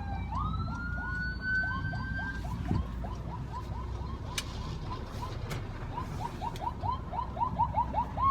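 Emergency vehicle sirens: one wail rising slowly over the first two seconds, and a fast yelp of repeated rising sweeps, about three to four a second, that quickens toward the end, over a low steady rumble.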